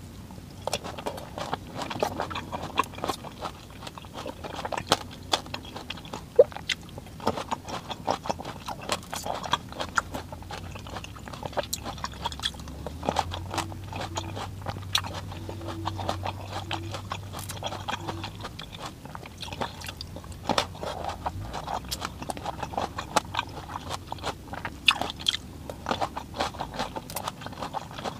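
Biting and chewing of large, crunchy red grapes: a quick, irregular run of crisp crunches and clicks as the firm grapes are bitten into and chewed.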